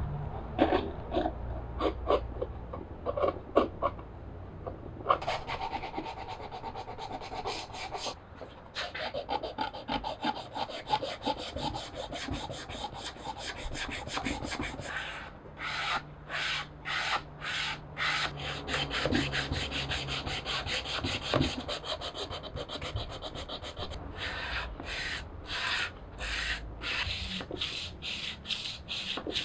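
A pine board being rubbed down by hand with an abrasive tool: quick, rhythmic scraping strokes, about two a second, after a few scattered knocks at the start.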